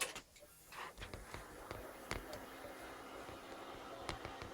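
Desktop PC being powered up: a click, then the cooling fans and drives spin up into a steady whir with a low hum, with a few light ticks.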